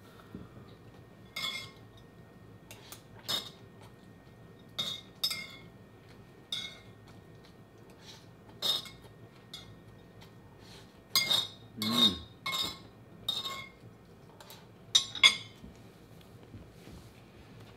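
Cutlery clinking on a dish while someone eats: about a dozen sharp, briefly ringing clinks at uneven intervals, bunched most closely and loudest in the second half.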